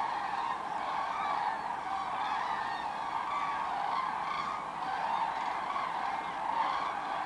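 A large flock of common cranes calling in flight as they come in to roost, many overlapping calls merging into a continuous chorus.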